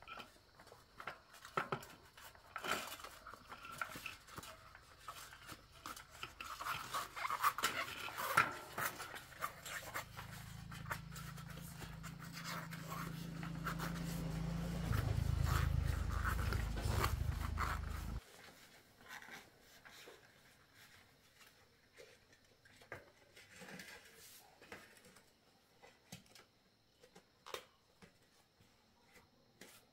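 A rubber bicycle tyre being worked around a spoked steel rim by hand, scraping and rubbing with small clicks. A low steady hum comes in about a third of the way through, grows louder and cuts off suddenly a little past the middle.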